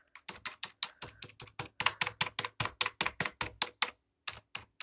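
Computer keyboard keys being pressed in quick succession, about five clacks a second, with a short break near the end; the clacks sound like Lego bricks snapping together.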